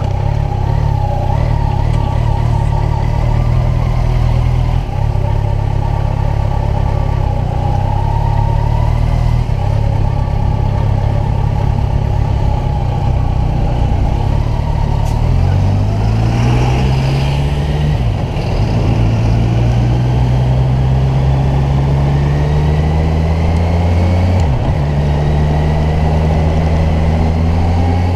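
Kawasaki Ninja 1000's inline-four engine running while riding, steady at first, then accelerating with its pitch climbing. Two upshifts break the climb, about two-thirds of the way in and again near the end, each with a brief drop before the engine pulls up again.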